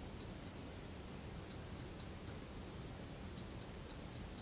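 Faint, irregular clicks from computer input while editing, about a dozen in small groups, over quiet room tone.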